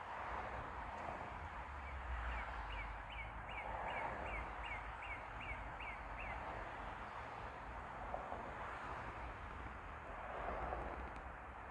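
A songbird singing a run of about a dozen quick, evenly repeated slurred notes, about two to three a second, with a couple more near the end, over steady background noise.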